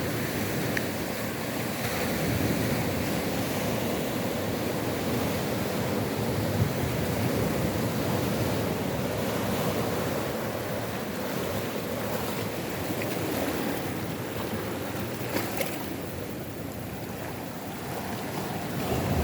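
South Atlantic surf breaking on a rocky shore, a steady wash that swells and eases over several seconds, with wind buffeting the microphone.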